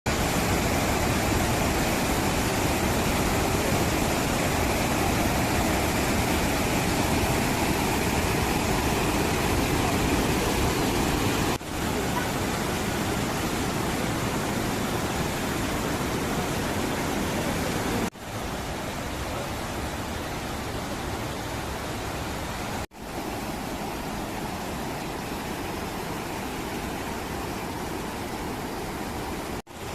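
Waterfall rushing, a steady, even wash of falling water. It breaks off for an instant four times at cuts between shots and is a little quieter after the second break.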